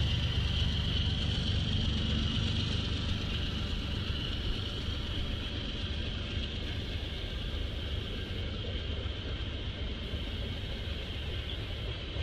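A steady low rumble with a hiss above it, slowly growing quieter.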